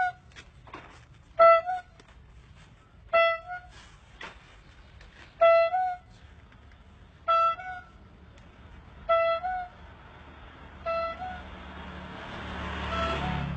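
Rubber-bulb ice-cream seller's horn (còi bì bọp) squeezed and released over and over, about eight honks roughly every two seconds. Each honk is a short two-note 'bì-bọp', the second note slightly higher. A rush of noise with a low hum swells near the end.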